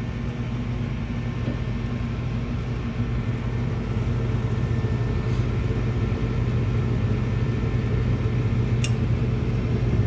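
Gas furnace running with its burners lit: a steady low rumble and hum that grows slightly louder, with a faint click near the end.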